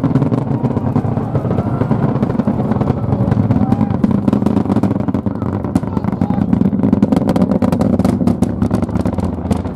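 Falcon Heavy rocket's Merlin engines firing, heard from about four miles away: a loud, deep, steady rumble with sharp crackling that grows more marked in the second half.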